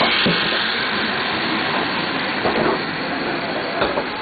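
Toy train's small battery motor whirring steadily as it runs along plastic track, with a few clicks from the wheels on the track, loudest as it passes close at the start.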